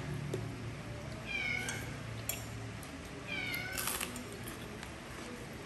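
A cat meowing twice, a couple of seconds apart, each meow a short pitched call, with a few sharp clicks in between.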